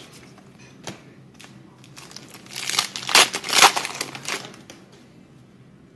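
Plastic trading-card pack wrapper crinkling as it is crumpled in the hands, a few light rustles and then a cluster of loud crackles around the middle.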